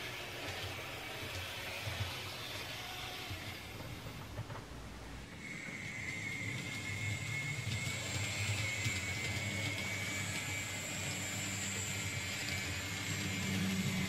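Small electric motors of N-scale model trams whirring, with the wheels rumbling over Kato Unitrack. First a Kato Portram runs; about five seconds in, the sound changes to a steady high whine over a low hum as a Hobbytrain Duwag tram runs the loop.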